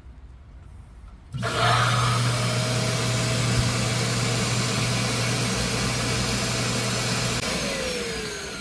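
Vacuum of an automatic air conditioning condensate drain system switching on about a second in and running steadily, suctioning the drain line to clear clogs. Near the end it shuts off and spins down with a falling whine.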